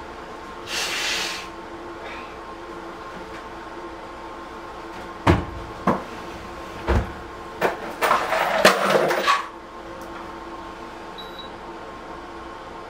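Bedding and a wooden bed frame as a person throws off a heavy comforter and gets out of bed: a few sharp low knocks about five to eight seconds in, then about a second of rustling fabric. A steady hum runs underneath, and there is a brief hiss about a second in.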